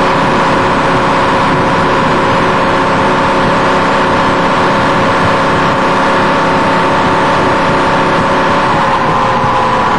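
Range Rover Sport's 4.4-litre V8 through a Supersprint aftermarket exhaust, running loud and steady under load on a dyno, with the tyre spinning on the rollers. A steady whine holds throughout, its pitch shifting slightly near the end.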